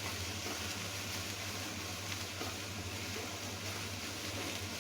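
Grated coconut, onion, ginger and garlic frying in coconut oil in a pan over a medium-low gas flame: a steady, soft sizzle, with a constant low hum underneath.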